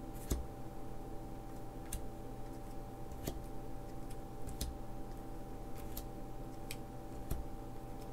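Pokémon trading cards being sorted by hand, each card slid off one stack and snapped down onto another, making irregular light clicks about once a second.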